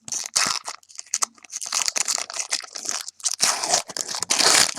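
A trading card pack wrapper crinkling and being torn open by hand, in irregular bursts of rustling that are loudest near the end.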